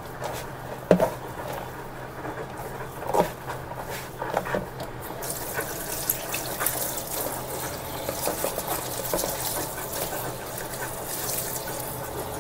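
Hands handling shredded young papaya in a plastic colander, with a few soft knocks. About five seconds in, a kitchen tap starts running water onto it in a stainless steel sink, rinsing the salted papaya.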